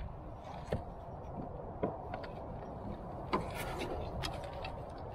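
A few sharp knocks and clicks, about four spread across a few seconds, from handling the catch and gear in a kayak, over a steady background hiss.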